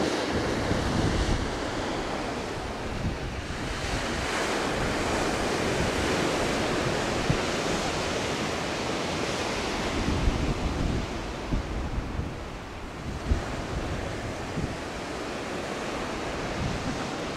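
Wind rushing and buffeting over the microphone: a steady noisy rush with uneven low gusts and a few brief knocks. There is no motor sound, since the model is an unpowered glider.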